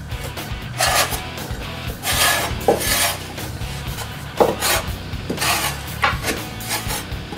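A metal bench scraper scraping flour and dough off the floury wooden sides and floor of a madia, the wooden kneading trough, in a run of short rasping strokes. A few light knocks come between the strokes.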